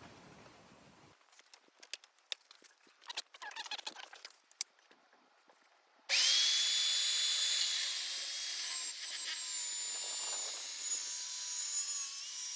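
Electric power saw for cutting MDF boards, starting suddenly about halfway through and then running steadily at a high pitch, after a few seconds of light clicks and knocks from the boards being handled.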